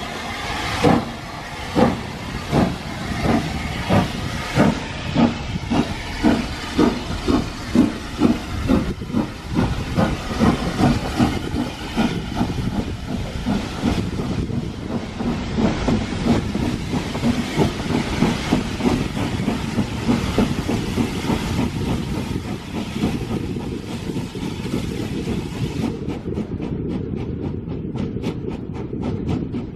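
SR S15 class 4-6-0 steam locomotive pulling a train away from a station, its exhaust beats quickening as it gathers speed, heard from an open carriage window. Later the beats merge into a steady rumble with the carriage wheels clicking over the rail joints.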